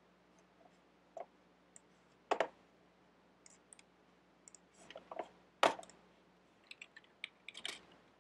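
Computer mouse and keyboard clicking: scattered single clicks, then a quick run of keystrokes near the end.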